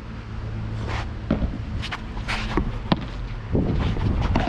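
Padel rally: a quick series of sharp knocks, about six in two seconds, from the ball off rackets and the court. Scuffling footsteps on the court near the end.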